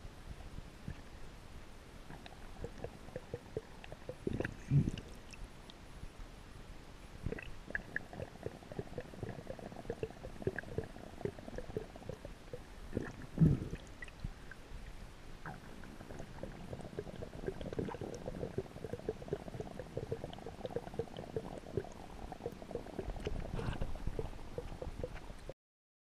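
Muffled underwater sound heard through a GoPro Hero 3+ Silver's sealed waterproof housing: a low rumble with scattered clicks and light knocks, and two louder low thumps about five and thirteen seconds in. The sound cuts off just before the end.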